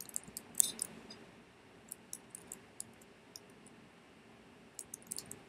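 Light clicks of a computer mouse, scattered irregularly, with a louder clatter of clicks a little over half a second in.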